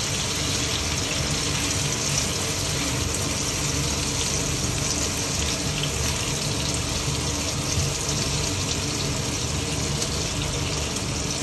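Chicken strips sizzling steadily in butter in a frying pan over moderate heat: an even hiss.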